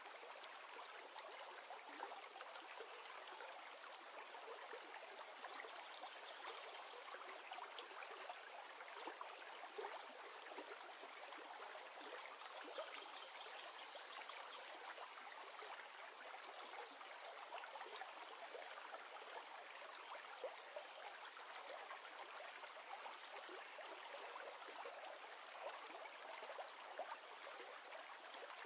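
Faint, steady rush of flowing water, like a stream.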